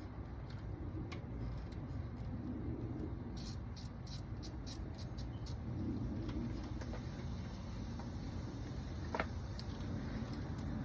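Light clicks and ticks of hand work on the engine's ignition coil packs and their connectors. A quick run of them comes around the middle and one sharper click comes near the end, over a steady low background rumble.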